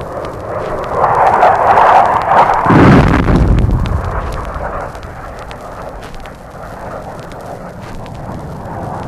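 A jet's roar builds, and about three seconds in a bomb bursts on the ground with a deep, heavy blast that dies away over the next two seconds. The vinyl record's surface crackle and pops run throughout. This is a field recording of F-100 Super Sabres bombing in a support mission.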